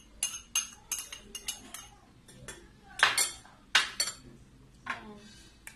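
Metal spoon clinking and scraping against ceramic bowls while seasoning is spooned into a mixing bowl for a marinade: a string of sharp clinks with short ringing, the loudest ones about three seconds in and again near four seconds.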